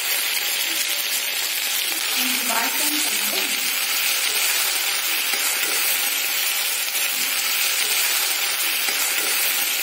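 Chopped onions sizzling steadily in hot oil in a kadai, freshly added to fry.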